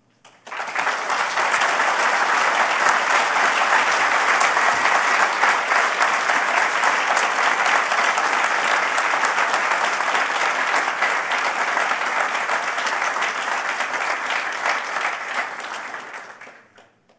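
Audience applauding: a long, steady round of clapping from many hands that starts about half a second in and dies away near the end.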